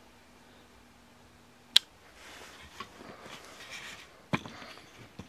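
Handling noise as things are picked up and set down on a hard surface: a faint steady hum that stops with a sharp click a little under two seconds in, then soft rustling and a single knock a little after four seconds.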